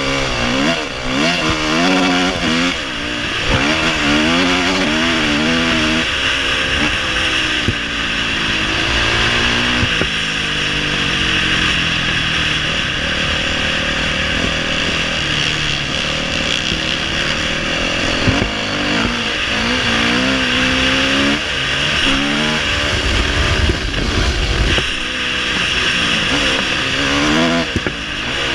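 Dirt bike engine ridden hard on a motocross track, its pitch rising and falling again and again as the rider opens and shuts the throttle through the gears, heard close from the rider's helmet.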